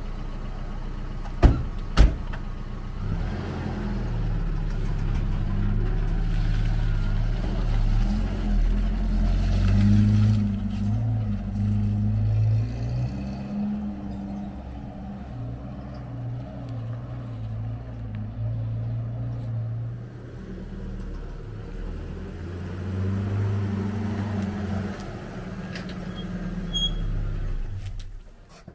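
Pickup truck engine running as the truck pulls away and drives, its pitch rising and falling with the throttle. Two sharp knocks come about a second and a half and two seconds in. The engine sound cuts off near the end.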